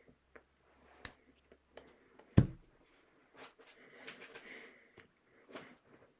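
Close-miked breathing and mouth noises with scattered small clicks, and one heavy thump about two and a half seconds in.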